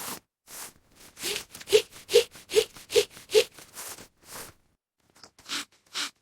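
A cartoon character's breathy vocal sounds: a string of short bursts, with a quick run of five voiced ones about a second in, then a pause and more short breaths near the end.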